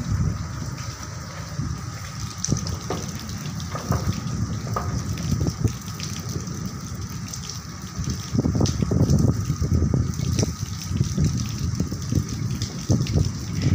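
Rain pouring down in a storm, a gusty low rushing noise with wind buffeting the microphone, which swells louder about eight seconds in.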